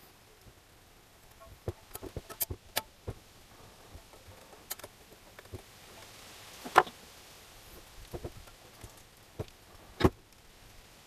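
Irregular sharp metallic clicks and light knocks as a gear and small steel parts are handled and seated on shafts inside an aluminium motorcycle engine crankcase. The loudest knocks come about two-thirds through and again near the end.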